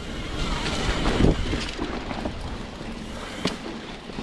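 Mountain bike riding fast down a dirt trail: tyres rolling over dirt and roots, with scattered knocks and rattles from the bike and wind on the microphone. The heaviest knock comes about a second in.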